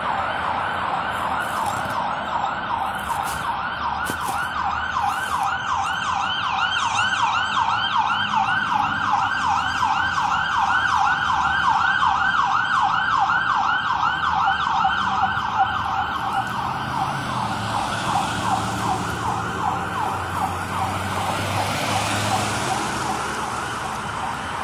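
Fire engine siren in a fast yelp: a rapid rise-and-fall of pitch, several times a second. It grows louder as the truck passes and fades out about two-thirds of the way through, leaving road traffic noise.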